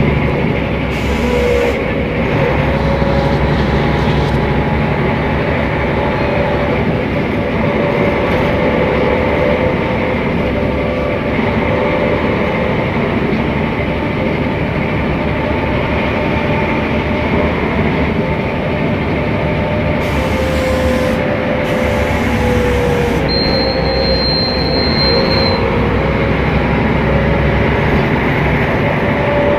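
Mercedes-Benz O500MA articulated bus running along its route, a steady mix of engine and drivetrain noise with wavering whines that shift in pitch. A brief high whistle sounds about two-thirds of the way through.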